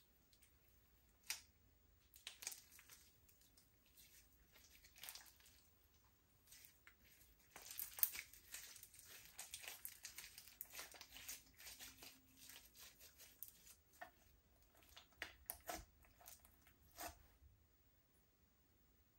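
Slime being worked: quiet sticky clicks and crackles, thickest in the middle and thinning out toward the end.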